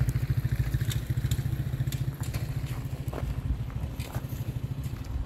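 A motor vehicle engine running with a fast, even low throb that slowly fades, with a few faint light clicks over it.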